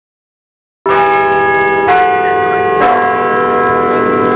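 Church bells ringing: after about a second of silence they begin suddenly, with a new bell struck roughly once a second and each left ringing on.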